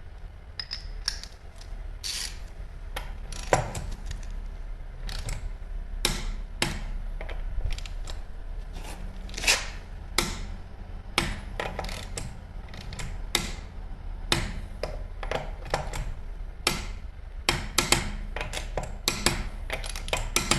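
Irregular metallic clicks and knocks of hand tools at work on a car wheel during a tyre change, some strikes sharper and louder than others, over a faint low hum.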